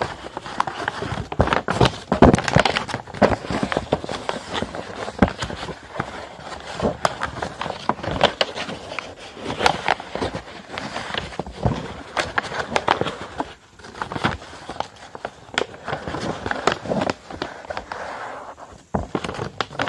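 A sheet of A5 copy paper being folded and creased by hand: irregular rustling and crackling of the paper, with many sharp clicks as the creases are pressed down.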